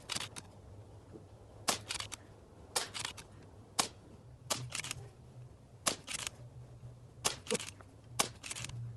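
Sharp clicks in quick clusters of two or three, repeating about once a second, over a faint steady low hum.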